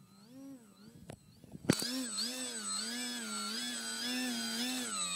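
Telink SU-29 electric RC plane's motor and propeller whining in a prop hang, the pitch rising and falling about twice a second as the throttle is worked to hold the hover. Faint at first, then a sharp click nearly two seconds in, after which it is much louder.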